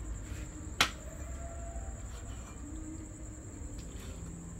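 A meat cleaver chopping boiled pork intestines on a plastic cutting board: one sharp chop about a second in, with a few much fainter cuts. A steady high whine and a low rumble run underneath.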